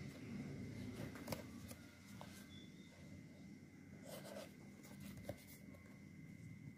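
Faint handling of a cardboard card box held and turned over in the hand: light rubbing with a few soft taps, about a second in and again around four to five seconds in.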